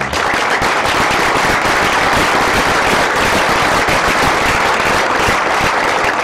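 Audience applauding: loud, dense clapping that starts suddenly.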